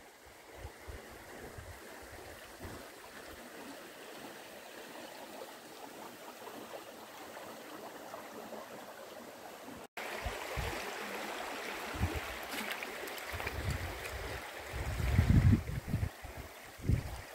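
Shallow creek running over stones and gravel, a steady watery hiss. After a cut about ten seconds in it is louder, and several low thuds or rumbles come through near the end.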